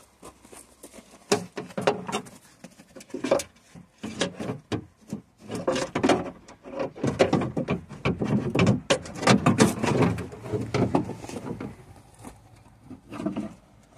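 Electric window regulator being worked into a car door cavity: irregular clunks, knocks and scraping of metal and plastic parts against the door's inner panel, busiest in the middle.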